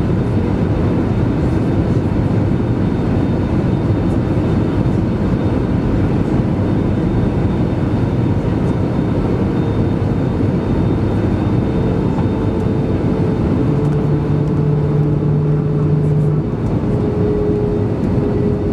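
Airbus A320 cabin noise on the descent: a steady roar of the engines and rushing air. A steady hum strengthens past the halfway point, and a lower hum sounds for about three seconds near the end.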